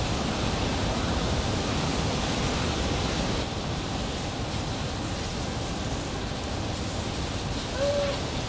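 Steady rushing outdoor noise, with one short, high call from a baby Japanese macaque near the end.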